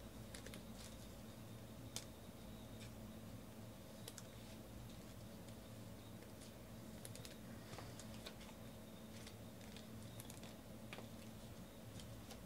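Faint, scattered clicks and ticks of a stack of trading cards being handled and flipped through by hand, with one sharper click about two seconds in.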